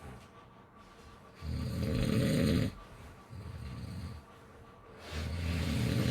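Snoring: two loud, low, rattling snores about a second long and three and a half seconds apart, with a softer snore between them.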